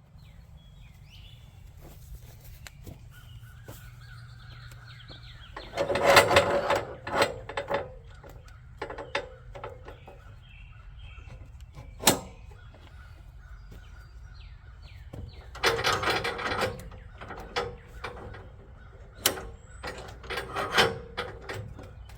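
Small birds chirping, with several loud, harsh bursts of sound that come in clusters a few seconds apart, along with a couple of sharp clicks.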